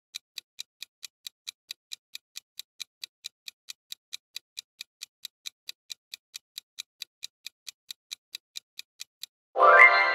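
Quiz countdown-timer sound effect ticking evenly, about four ticks a second. Near the end the ticking stops and a loud, bright chime rings out and fades as the correct answer is revealed.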